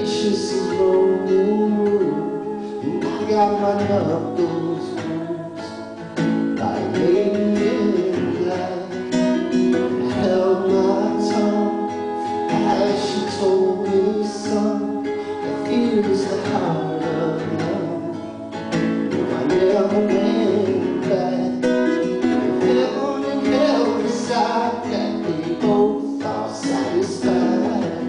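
A woman singing a slow song, accompanied on acoustic guitar.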